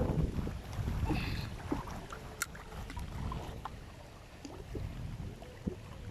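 Low, gusting rumble of wind on the microphone, with a few faint clicks.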